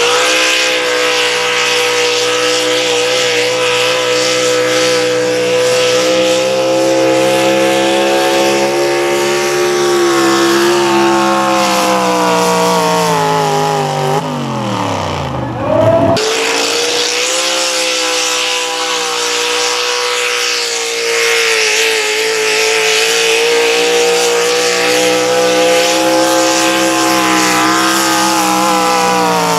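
Chevrolet square-body pulling truck's engine running at high, steady revs under load as it drags the sled, then winding down in a steep falling pitch about halfway through at the end of its pull. After a cut, a second Chevy pulling truck's engine runs at high revs on its pass.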